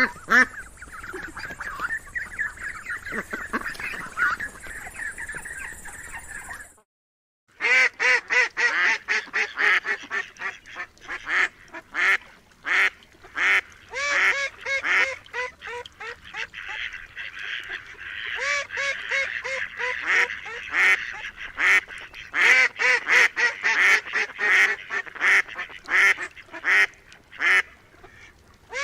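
Domestic ducks calling, then after a short silent break a flock of geese honking in quick, loud, overlapping repeated calls.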